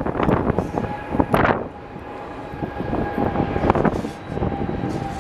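Jet airliner engines with a steady whine, under irregular gusts of wind buffeting the microphone.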